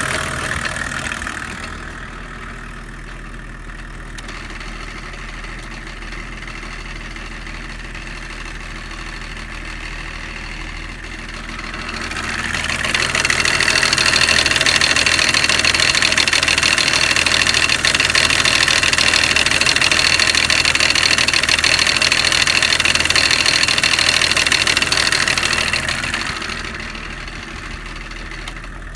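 Opel Omega B 2.5 TD's BMW M51 straight-six turbodiesel running, with a knock from the crankshaft pulley. It gets much louder for about thirteen seconds in the middle, then settles back to the quieter run.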